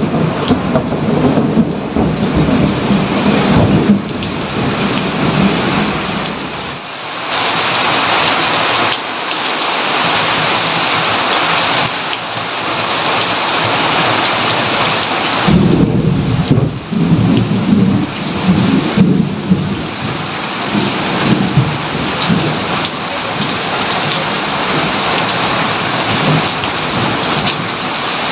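Steady heavy rain with rolling thunder. The thunder rumbles through the first few seconds, fades, then rolls in again a little past the middle.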